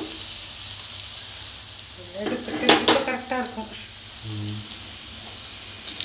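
Hot cooking oil sizzling steadily in a cast-iron skillet of shallow-fried plantain slices and in the small steel bowl it was drained into, still bubbling. A few sharp metal clinks about halfway through.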